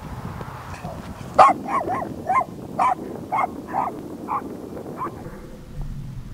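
A dog barking, about nine short barks in a row over roughly four seconds, starting about a second and a half in.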